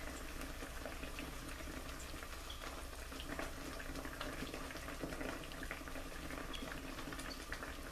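Pork chops simmering in water in a skillet: a faint steady bubbling with many small pops and crackles, over a low hum.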